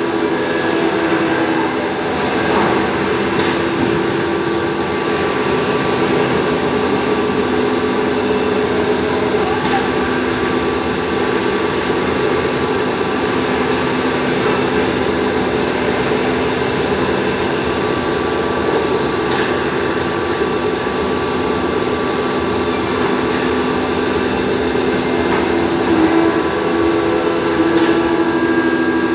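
CNC drilling machine running: a steady mechanical whir with several held tones over it.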